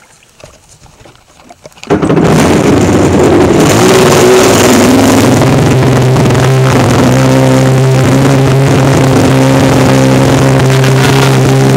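Faint quiet with a few small clicks, then about two seconds in a Yamaha SuperJet stand-up jet ski's two-stroke engine comes in suddenly and loud. It rises briefly in pitch, then runs at steady high throttle with the rush of water and wind over it.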